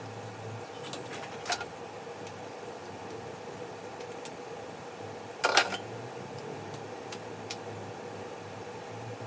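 Several sharp clicks and ticks of small hand tools being handled during fine bench work, the loudest a little past halfway, over a steady low hum.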